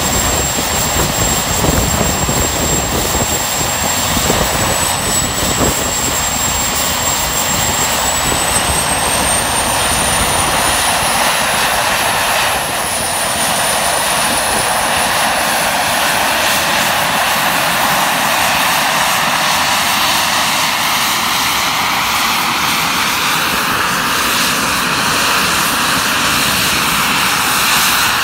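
Small jet engine of a canard homebuilt jet running, a steady rushing roar with a thin high whine that rises in pitch about a third of the way through and then fades out. The jet taxis away near the end.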